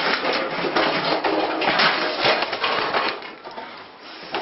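A microwave oven being smashed down onto a kitchen stove: a quick run of loud crashes and the clatter of metal and breaking glass, dying down near the end.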